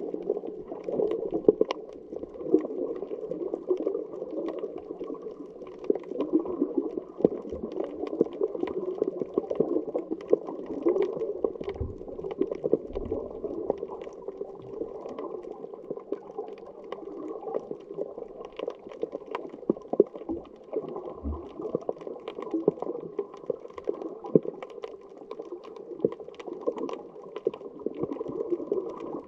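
Underwater ambience heard through a submerged camera: a steady, muffled rushing of water with frequent faint crackling clicks.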